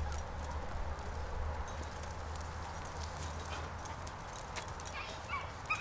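Dogs play-fighting: scuffling and rustling with light clicks, and a couple of short, faint yelps near the end, over a steady low rumble.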